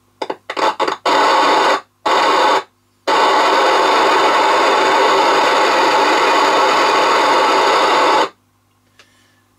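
Cobra 29LXEU CB radio's loudspeaker hissing with receiver static as its squelch is opened on a channel with no signal, after a few short clicks. The hiss comes in two short bursts, then runs steadily for about five seconds and cuts off sharply.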